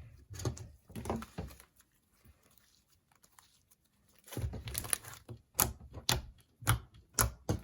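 Slime being squeezed and poked, giving crackly clicks and pops. A few come in the first second, and from about halfway through there is a run of sharp clicks, about two a second.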